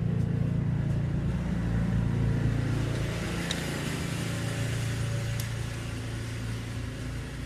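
Lawn mower engine running steadily in the background, a continuous low drone, with two faint sharp clicks in the middle of it.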